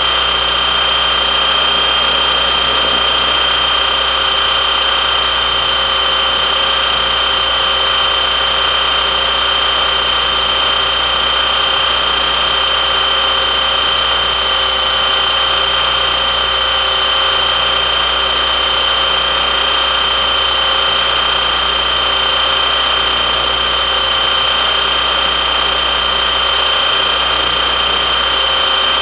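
Radio-controlled helicopter running at a steady speed: a constant high whine from the motor and rotor that holds one pitch throughout.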